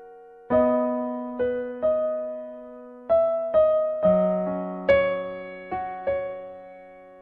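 Background music: a slow, gentle keyboard melody, with single notes and chords struck every half second to a second and left to fade.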